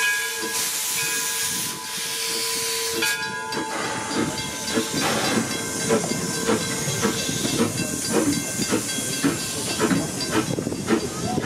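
Steam locomotive hissing loudly as it vents steam, with a faint steady tone under it; the hiss cuts off about three seconds in, and a steady run of knocks and clanks follows, about two a second, as the engine moves.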